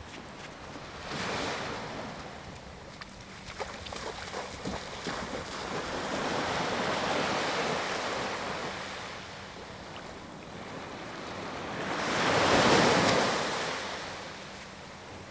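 Small waves washing onto a sandy beach, with wind on the microphone. The wash swells and fades several times, loudest about twelve seconds in.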